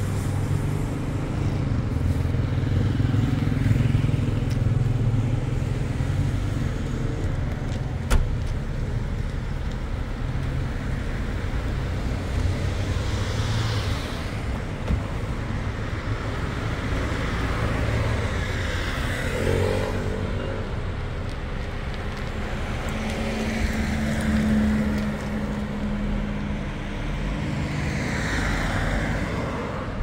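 Road traffic: cars passing one after another over a steady low rumble, each swelling and fading as it goes by. A single sharp click about eight seconds in.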